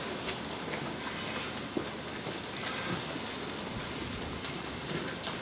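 Battered fish deep-frying in hot oil: a steady sizzle with a few faint pops.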